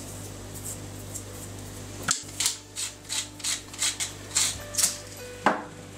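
Wooden hand pepper mill being twisted to grind black pepper: about nine short grinding strokes at roughly three a second, starting about two seconds in. A single sharp knock follows near the end.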